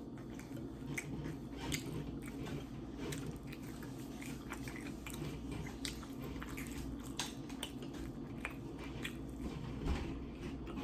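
A person chewing food, with a steady run of small mouth clicks and smacks while eating.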